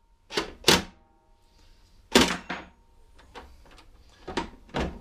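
Cordless DeWalt impact driver fired in about eight short trigger pulses, mostly in pairs, easing off the last bolt that holds the lawnmower engine to its deck.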